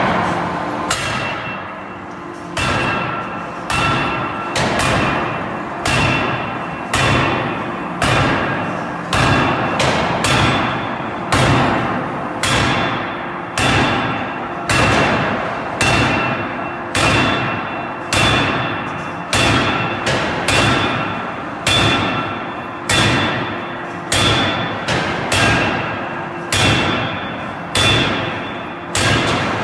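Forging hammer striking metal in a steady rhythm, about one blow every 1.2 seconds, each blow ringing briefly.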